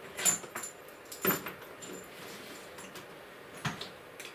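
Bundled cables and reusable plastic cable ties being handled and fastened over an aluminium case: light rattling and rustling with three sharper clicks, near the start, at about a second and near the end.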